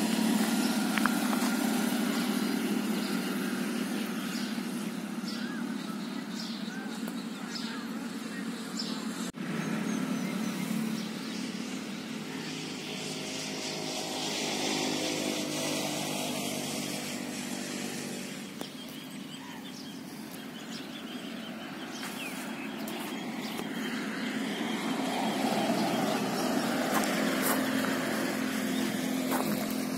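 Motor vehicle engines in road traffic: a steady engine hum that swells and fades as vehicles pass, louder about halfway through and again near the end.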